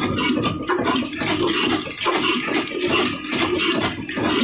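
Old 18 HP stationary diesel engine running under a wheat grinder, its exhaust beating in a steady, rhythmic chuff.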